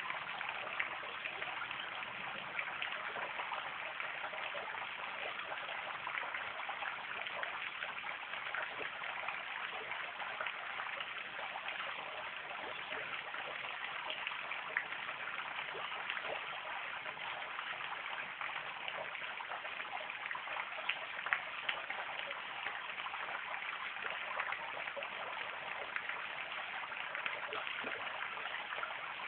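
Small garden fountain jet splashing steadily back into its pond: an even wash of falling water with many fine droplet ticks.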